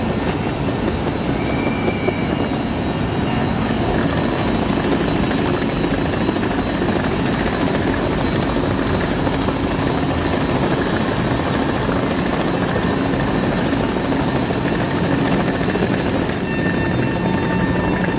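Passenger train running on the rails, a steady, even rumble heard from inside the coach.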